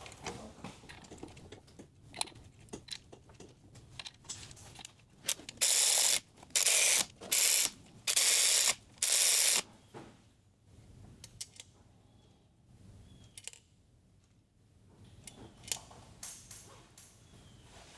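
Power ratchet running down the bolts of a transmission cover in several short bursts, about five to ten seconds in. Small metallic clicks and knocks of parts being handled come before and after.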